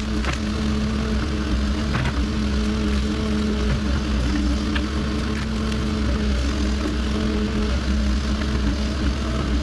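Cat 308 excavator's diesel engine running at a steady speed, with a few faint sharp clicks or knocks over it.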